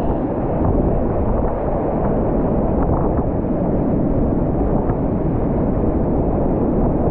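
Whitewater rapids rushing and churning around a kayak: a loud, steady, dull roar with little hiss.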